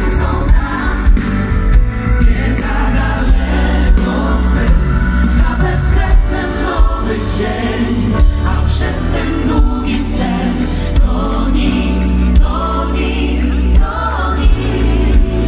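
Live pop band and a group of singers performing through a PA system, loud, with strong bass and layered choir-like voices.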